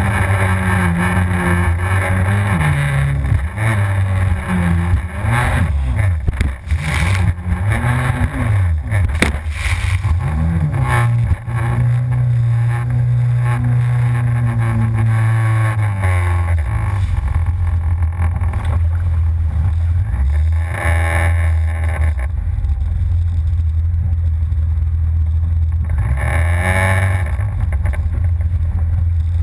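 Yamaha FZS WaveRunner personal watercraft engine, revving up and down repeatedly through the first half as it rides over waves, then holding a steady pitch. Several short bursts of rushing noise come through over the engine.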